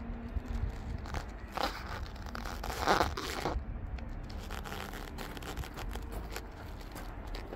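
Crunching and rustling as someone moves over gravel, loudest about three seconds in, over a steady low rumble.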